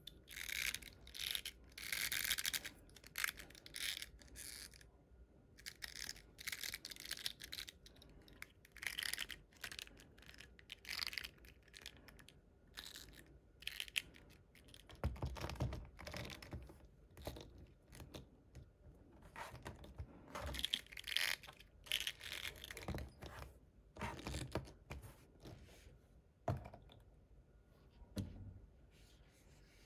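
Hands handling a plastic toy figure and its packaging: an irregular run of rustles, clicks and scrapes, with a few light knocks in the middle.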